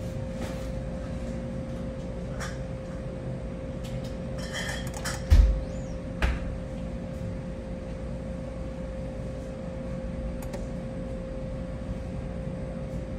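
Steady electrical hum from a touchscreen skill-game machine with a constant tone, joined briefly by a short electronic game sound during the bonus spins. Two dull thumps follow about a second apart.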